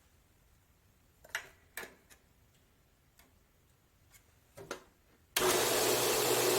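A few light clicks and knocks, then about five seconds in a Harbor Freight 4x6 metal-cutting bandsaw switches on and runs with a steady motor hum.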